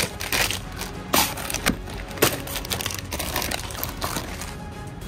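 Plastic cookie packages crinkling and rustling as they are handled, in irregular sharp bursts that thin out about four and a half seconds in.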